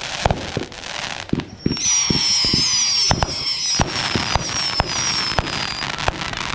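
Backyard consumer fireworks going off: a string of sharp bangs and pops throughout, and from about two seconds in a hissing shower with a high, wavering whistle that slowly falls in pitch and stops about six seconds in.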